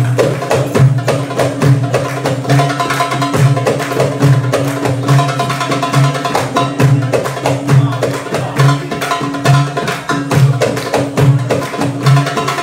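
Music with a steady beat: repeated low bass pulses under clicking percussion that sounds like a wood block, and a held tone.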